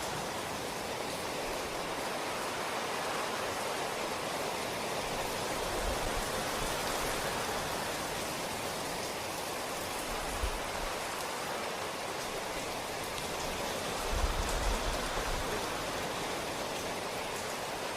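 Steady rain falling, an even hiss, with a few faint low thumps around the middle and near the end.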